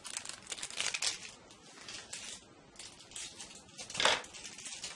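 Heat transfer vinyl scraps crinkling and rustling as they are cut and handled, in a string of short crackly bursts, the loudest about four seconds in.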